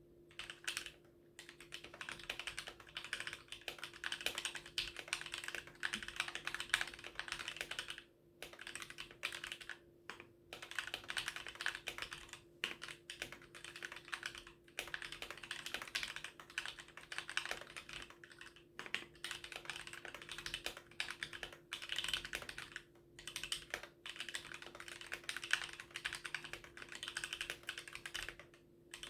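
Typing on a 60% mechanical keyboard with lubed and filmed Gateron Yellow linear switches, an aluminum plate and a frosted acrylic case, with POM jelly keycaps. The keystrokes come in fast runs broken by brief pauses.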